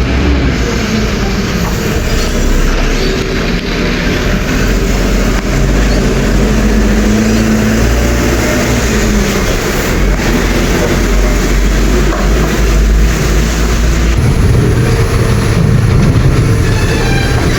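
Heavy road traffic: a loud, steady low rumble of large vehicle engines and tyres, changing character about fourteen seconds in.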